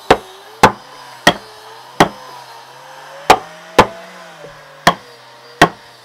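Eight sharp strikes of a hand tool on wood, spaced irregularly about half a second to a second apart.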